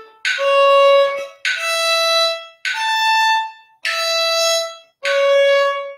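Violin playing slow, separate bowed notes, one per beat at 50 BPM, about one every 1.2 seconds. The five notes step up in pitch and then back down, each starting sharply and fading before the next.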